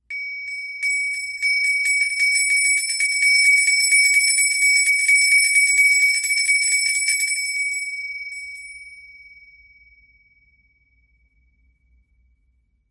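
A small bell being shaken, its clapper striking rapidly again and again for about seven seconds, one high ringing note over the rattle of strikes. The shaking then stops and the note rings on and dies away over a few seconds.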